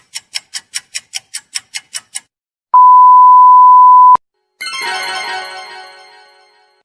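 Three stock sound effects in a row. First, quick even ticks at about five a second, stopping about two seconds in. Then the loudest part, a steady 1 kHz censor bleep lasting about a second and a half, followed by a ringing, shimmering musical sting that fades away.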